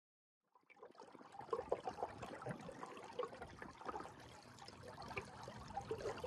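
Water trickling and lapping along the hull of a small sailing skiff moving under sail: a faint, irregular patter of small splashes and clicks that fades in about half a second in.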